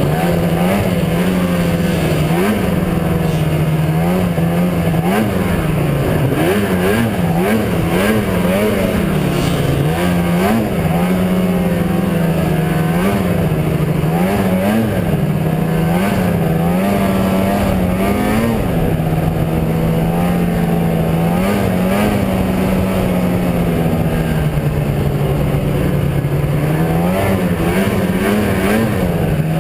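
Arctic Cat snowmobile engine running while the sled is under way, heard close from on board; its pitch rises and falls repeatedly, about once every second or two, as the engine speed changes.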